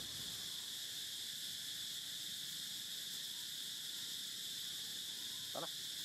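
Steady high-pitched drone of insects. A short call cuts in about five and a half seconds in.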